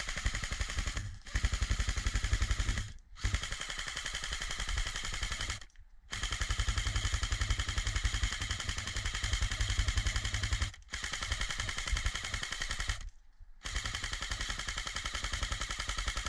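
G&G CM15 airsoft electric gun firing full auto: a fast, even rattle of shots in six long bursts, each a second or more long and split by short breaks.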